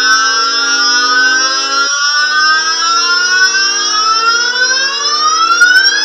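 GarageBand synthesizer patch "Thunderous Ambience" on its Storm setting: a held chord of steady tones with many layered pitch sweeps rising over it, climbing faster near the end. The low chord tones cut out briefly about two seconds in and come back.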